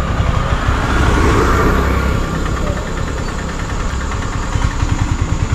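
Piaggio Ape auto-rickshaw's single-cylinder engine idling with a steady low chugging that grows louder near the end. A motorcycle passes about a second in.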